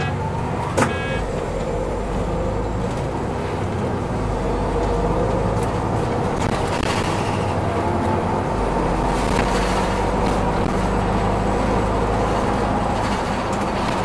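Solaris Urbino 8.9LE city bus pulling away and driving on, its engine running steadily over road noise and growing a little louder about four seconds in. A single sharp click sounds about a second in.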